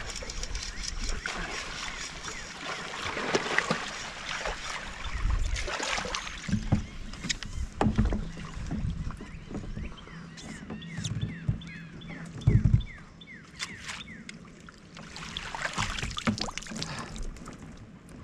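Water splashing and sloshing around a kayak as a hooked fish is fought and netted beside it, with knocks against the hull, the loudest about twelve seconds in.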